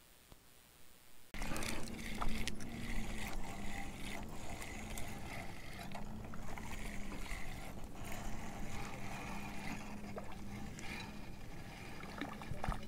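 Lake water lapping, with wind on the microphone and a steady low hum that wavers about once a second. Scattered small clicks, starting suddenly about a second in.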